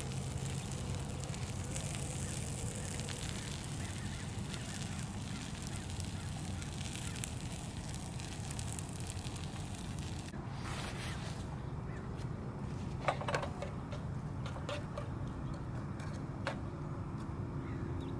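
Eggs sizzling in a frying pan over a portable gas camp stove: a steady hiss over a low burner hum. About ten seconds in the hiss thins and a few light clicks and scrapes of a fork in the pan come through.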